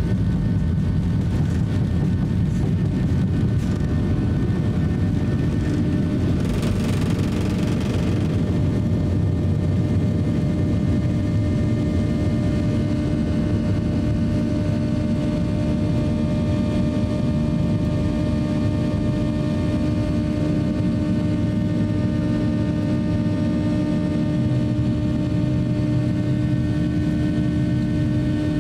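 Inside the cabin of a Boeing 737-800, its CFM56-7B turbofan engines running at takeoff thrust: a loud, steady rumble with steady engine hum lines, as the jet leaves the runway and climbs. A brief hiss of rushing air comes about seven seconds in, after which one steady engine hum stands out more clearly.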